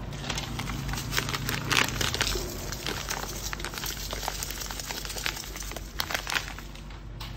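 Dry salt poured from a plastic bag into a metal pot, with the bag crinkling. It makes a granular rustle broken by many small, scattered crackles.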